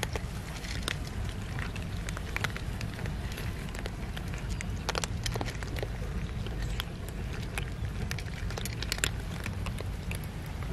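Several cats eating dry kibble: an irregular crackle of crisp crunches and clicks over a steady low rumble.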